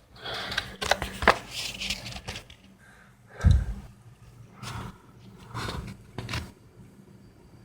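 Paper being handled and rolled close to the microphone: rustling and scraping, with a heavy thump about three and a half seconds in. Under it runs a steady low buzz from the power supply's coils.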